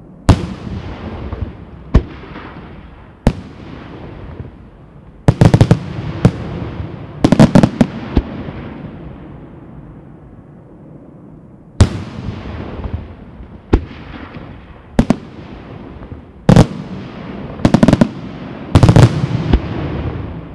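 Senatore Fireworks aerial shells bursting in the night sky: single sharp booms every second or two, each followed by a rolling echo, with rapid clusters of bangs about five to eight seconds in and again near the end.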